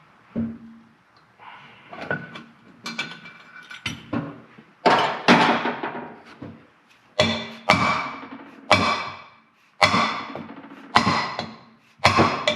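Hammer blows on the valve spring retainer of a Ford 4.0 V6 cylinder head, struck to free a valve that is stuck with gummed-up keepers. A dozen or so sharp, ringing knocks: lighter taps at first, then harder blows about once a second.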